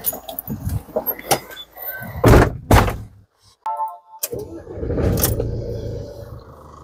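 Cab door of an Iveco Daily motorhome thumping shut twice, a brief dashboard chime as the ignition key is turned, then the Iveco Daily engine cranking and starting about four seconds in and running on as it settles.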